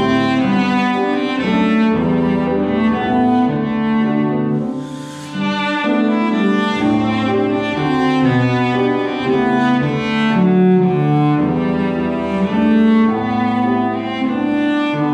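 Bowed cello playing a melody with grand piano accompaniment. The phrase breaks briefly about five seconds in, then the cello line carries on.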